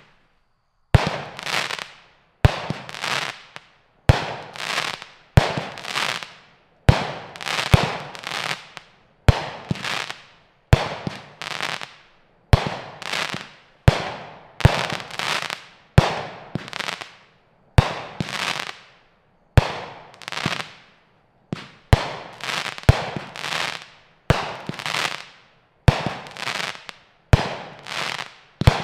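Brothers Pyrotechnics Blood Money, a 49-shot 500-gram firework cake, firing shot after shot about once every one and a half seconds. Each shot is a sharp launch bang followed by a noisy break in the air that dies away over about a second.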